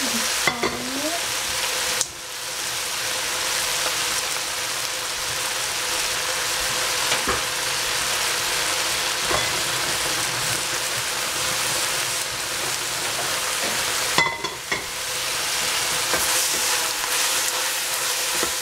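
Bok choy and red capsicum frying in a stainless steel pot: a steady sizzling hiss with a few sharp clicks, briefly dipping about two seconds in and again about fourteen seconds in.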